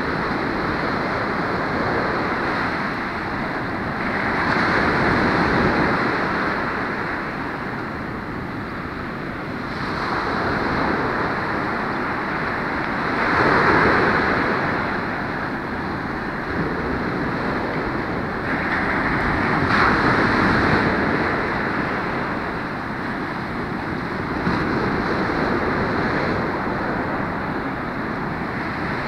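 Ocean surf breaking and washing up a sandy beach, a steady rush that swells and fades every few seconds as each wave comes in, the loudest surge about halfway through.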